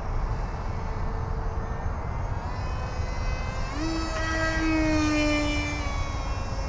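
Electric RC delta wing's Grayson Hobby Micro Jet V3 2200kv brushless motor and propeller whining in flight. About four seconds in, the pitch jumps up sharply, then slowly sinks, over a steady low rumble.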